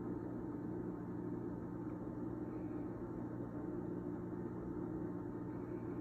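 Steady low hum of a running machine, unchanging throughout, with no distinct events.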